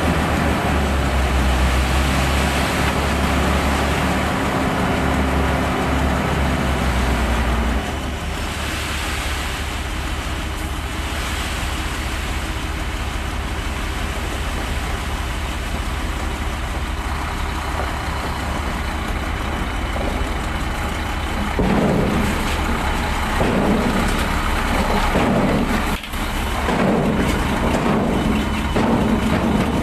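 Shacman dump truck's diesel engine running with the tipper raised: steady and loud at raised revs, dropping to a lower idle about eight seconds in. It swells unevenly near the end, heard close up beside the chassis.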